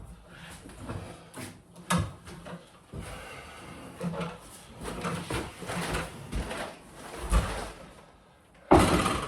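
Scattered knocks, clunks and rattles of parts and tools being handled during a bath installation, with one louder clatter lasting about half a second near the end.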